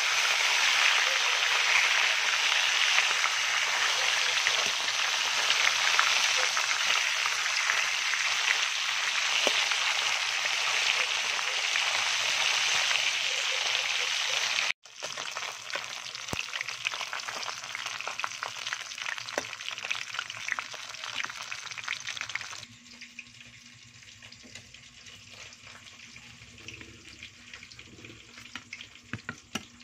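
Whole tilapia frying in hot oil in a wok: a dense sizzle full of small crackles and pops. About halfway the sizzle cuts off and comes back quieter, and about three-quarters through it drops to a faint hiss.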